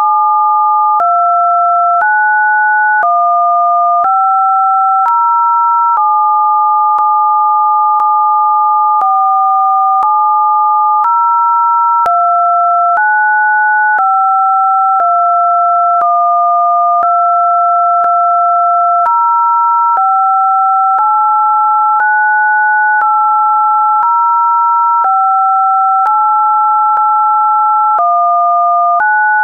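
Two electronically generated pure sine tones sounding together, each stepping to a new pitch about once a second, a test-signal pattern in the range of roughly 600 Hz to 1.5 kHz. A faint click marks each pitch change.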